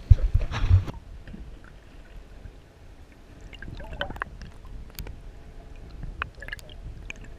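Sea water heard through a camera held underwater: a loud sloshing rush in about the first second, then muffled gurgling with scattered small clicks and drips.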